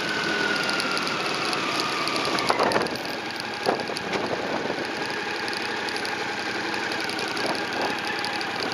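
Motorcycle engine running at low speed as the bike rolls in, its note falling over the first couple of seconds as it slows, with a couple of short knocks a few seconds in, then running steadily at low revs.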